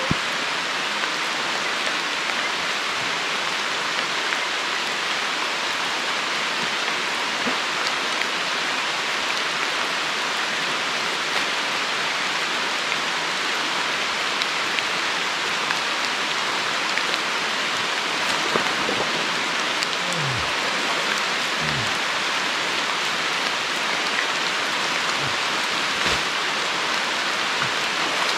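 Heavy rain falling steadily, an even hiss of raindrops.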